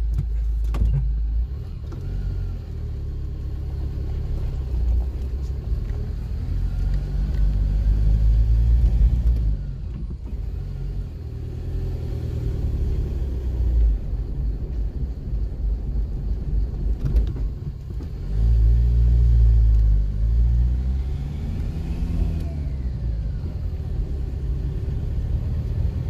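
Car engine and road noise heard from inside the moving car, a steady low rumble with the engine note rising and falling as the car speeds up and eases off. The rumble swells louder about eight seconds in and again around nineteen seconds in.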